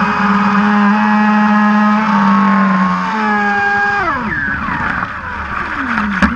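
Brushless TP electric motor of an Ariane2 mono-hull RC racing boat running flat out with a steady high whine, then its pitch falls away about four seconds in as the throttle comes off, sinking lower near the end. A single sharp click comes just before the end.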